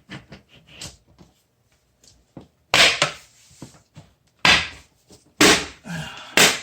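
Four loud knocks and clunks of a plastic-and-glass PC case front panel being handled and pressed back into place on the case, spread over about four seconds, the first about three seconds in.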